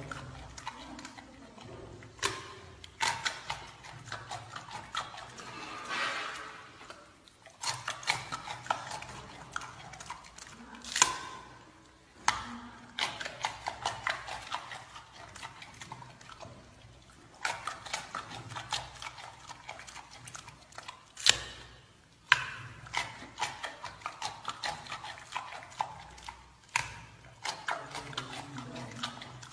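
Giant panda chewing a banana: irregular wet smacks and clicks, some louder single snaps, over a faint steady low hum.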